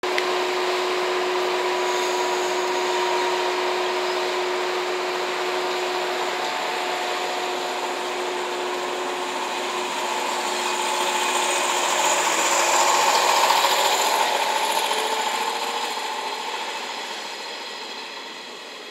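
JNR 115 series electric train running past along the platform: a steady hum with high tones, then a motor whine rising in pitch and growing louder a little past halfway, fading near the end as the train moves away.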